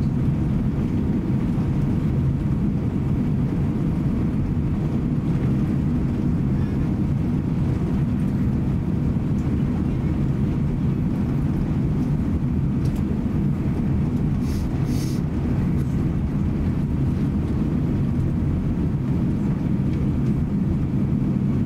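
Steady cabin noise of an Airbus A350-900 taxiing: a low rumble from its Rolls-Royce Trent XWB engines at taxi power, with a faint steady hum. About two-thirds of the way through come two brief, faint high-pitched rattles.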